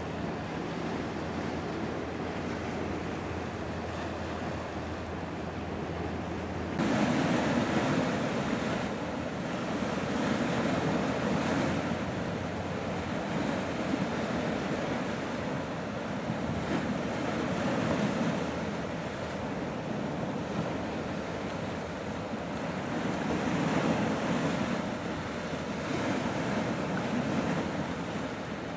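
Sea water washing against the harbour edge, with wind buffeting the microphone. The sound steps up suddenly about seven seconds in, then swells and eases every few seconds.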